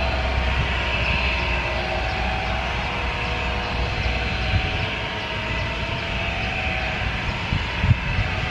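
Boeing 737 jet engines running: a steady rush of jet noise over a low rumble, with a sustained whine. A few low thumps come near the end.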